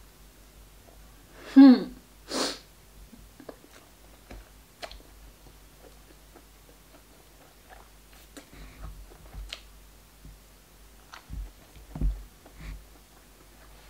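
A short voiced sound falling steeply in pitch, then a sharp nasal burst like a sniff or sneeze, about two seconds in. After it, light scattered clicks of a seafood pick on crab and langoustine shell, and a few dull thumps near the end.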